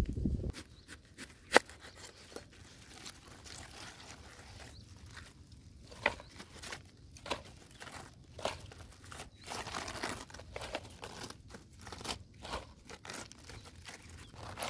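Crisp napa cabbage leaves being snapped and torn off the head by hand: a string of short crunches and crackles every second or so, with rustling of the leaves between them. A single sharp tap, the loudest sound, comes about a second and a half in.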